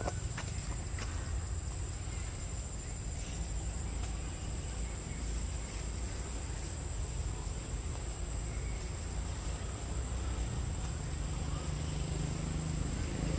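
Forest insects making a steady, unbroken high-pitched whine over a low rumble, with a few faint clicks near the start.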